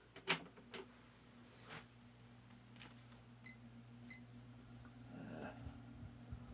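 Vintage Lasko 12-inch oscillating table fan switched on with a click, its motor then running with a faint, steady low hum on low speed. A few light clicks and two short electronic beeps come near the middle.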